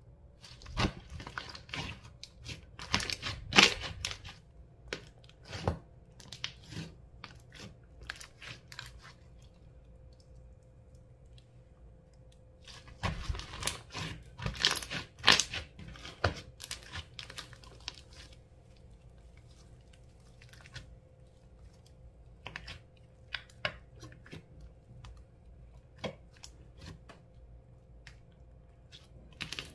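Slime being mixed, with sticky crackling and popping in two spells, about a second in and again around halfway, and scattered single pops later on.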